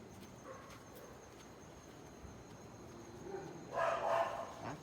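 A dog barking in two short bouts near the end, after a stretch of quiet background.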